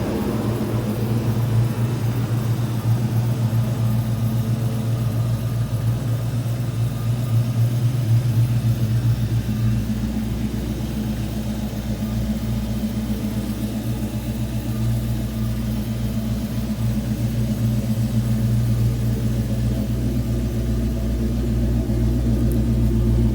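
1993 Ford Mustang Cobra's 5.0-litre V8 idling steadily with a deep, even exhaust rumble through an off-road H-pipe and Flowmaster 44-series mufflers.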